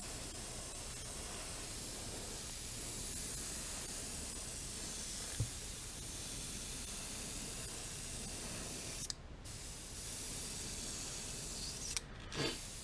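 Airbrush spraying a light coat of paint onto a lure, a steady hiss that cuts out briefly twice as the trigger is let off, about nine seconds in and near the end.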